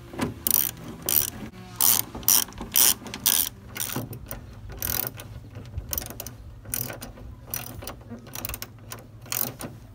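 Hand ratchet wrench clicking in quick back-and-forth strokes as it turns a hood hinge bolt. The clicks are loudest during the first three or so seconds, then lighter and more spread out.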